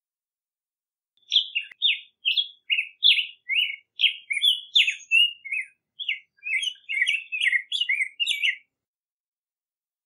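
Black-headed grosbeak singing: one long warbled song of short notes sliding up and down, starting about a second in and lasting about seven seconds, with a brief break near the middle.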